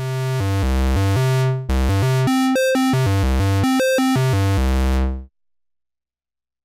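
Make Noise 0-Coast semi-modular synth playing a bright, buzzy square-wave tone from its keyboard. A low held note lasts about a second and a half, then comes a quick run of notes that changes pitch a few times a second. The sound stops a little over five seconds in.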